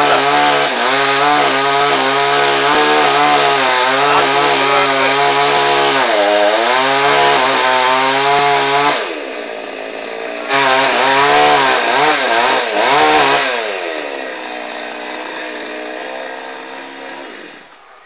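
Motorized chainsaw cutting tree branches, its engine revving up and down under load. It drops back about nine seconds in, revs hard again for a few seconds, then runs lower and cuts out just before the end.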